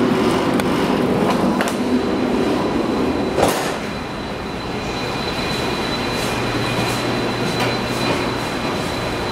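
Steady drone of shipboard ventilation and refrigeration machinery, with one sharp knock about three and a half seconds in and a thin high whine from then on.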